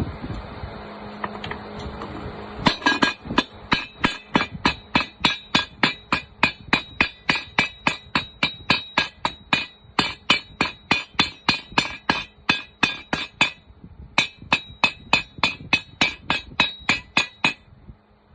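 A hammer striking metal in a steady run of sharp, ringing blows, about four a second, with a short break about two-thirds of the way through. A steady hum comes before the blows start.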